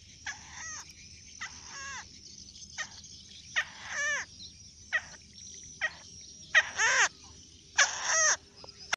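Young crakes (burung tikusan) calling repeatedly, about one call a second: short sharp notes, many of them sliding down in pitch.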